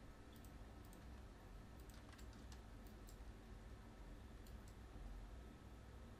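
Near silence with scattered faint clicks of a computer mouse and keyboard, a dozen or so at irregular intervals.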